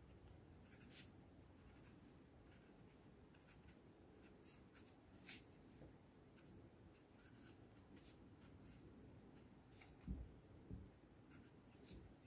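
A pen scratching faintly on paper in many short strokes as numbers and brackets are written. A soft low thump about ten seconds in.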